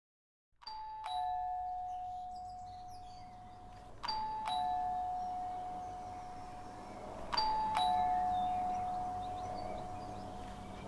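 Two-tone doorbell chime rung three times, about three and a half seconds apart: each a ding-dong, a higher note then a lower one, both ringing on and fading slowly.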